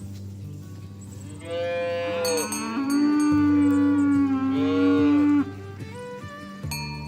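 A cow mooing: one long, loud call lasting about four seconds, from about one and a half seconds in.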